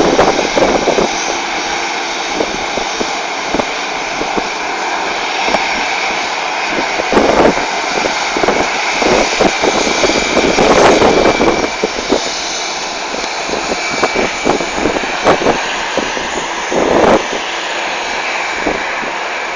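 Jet airliner's engines, a loud steady rush with a faint high whine, swelling to its loudest about ten seconds in.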